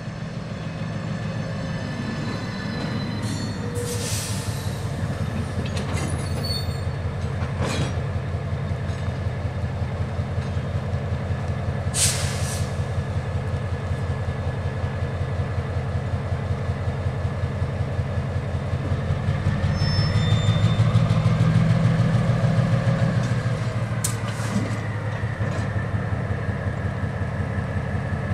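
EMD MP15DC diesel switcher locomotive's engine running under load as it moves slowly, a steady pulsing throb that swells louder about twenty seconds in, then eases. A few brief high-pitched squeals cut in over it, the loudest about twelve seconds in.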